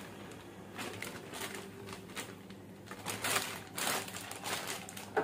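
A thin plastic bag crinkling and rustling as hands fit a raw chicken piece inside it and smooth it flat. The rustles are irregular, louder in the second half.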